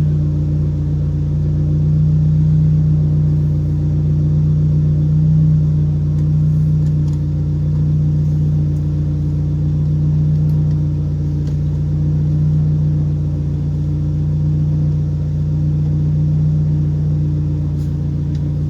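Car engine idling with a steady, even low hum.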